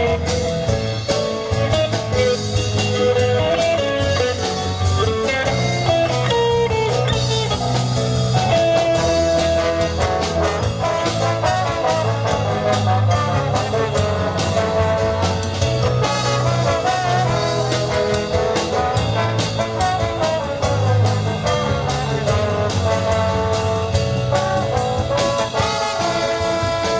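Live band playing: a horn section of trumpets, trombones and saxophones carrying the melody over drum kit, guitar and keyboard.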